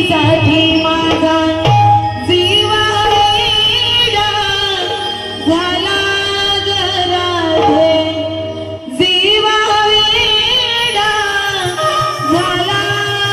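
Marathi gavlan devotional folk song: melody with singing over a steady accompaniment, breaking off briefly about nine seconds in before carrying on.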